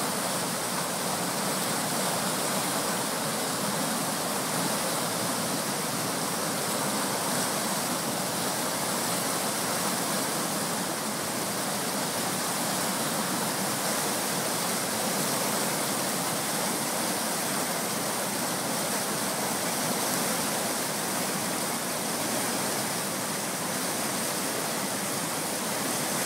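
River rapids: fast, muddy water rushing and churning white over rocks, a steady, unbroken rush of water.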